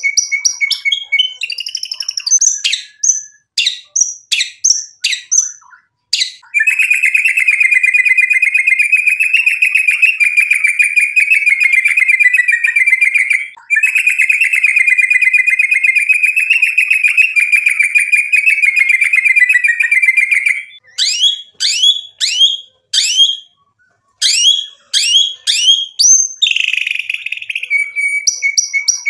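Male white-rumped shama singing: a run of sharp whistled notes sweeping up and down, then a long rapid trill held for about fourteen seconds with a brief break halfway, and more sweeping whistles near the end.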